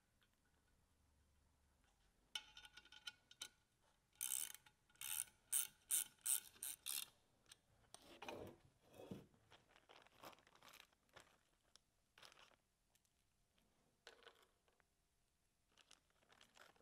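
Faint metallic clicking and rattling of hand tools on set screws as the pump's rear plate is secured to the guide vane, with a run of sharper clicks from about four to seven seconds in, then softer scattered clicks and handling.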